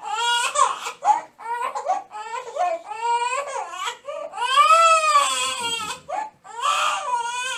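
Two-month-old baby crying: a string of short cries, then one long, loud wail a little past halfway, and another cry near the end.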